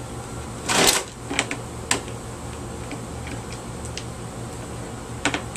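Clicks and knocks of a small vacuum cleaner's plastic housing and screws being handled during disassembly, with one louder scraping rattle about a second in and scattered sharp clicks after it.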